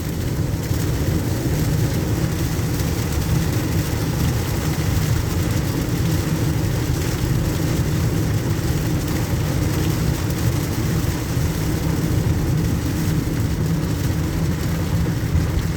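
Steady in-cabin noise of a car driving on a wet road in heavy rain: a low drone of engine and road, with the hiss of tyres on water and rain over it.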